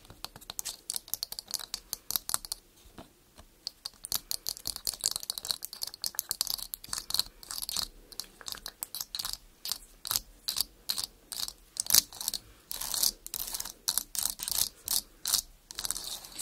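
Long fingernails tapping and scratching on a camera lens in quick, crisp clicks, several a second, with a short pause about three seconds in.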